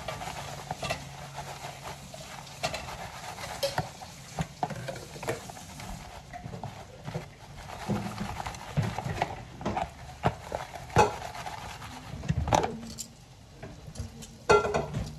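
Breaded pork and chicken cutlets frying in a pan of hot oil with a steady sizzle, broken by repeated sharp clicks and taps of chopsticks against the crumb tray and the pan, the loudest near the end.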